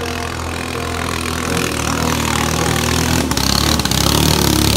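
Flat racing boat's engine running hard as the boat speeds by on the water, growing louder as it closes in, with hissing spray from the hull joining in for the last second or two.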